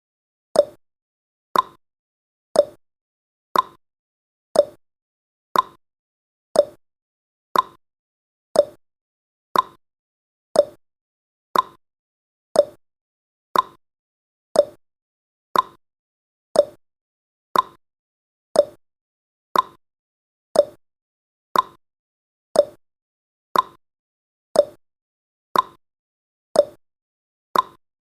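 Clock ticking sound effect of a countdown timer: one sharp tick each second, alternating between a higher and a lower click, tick-tock.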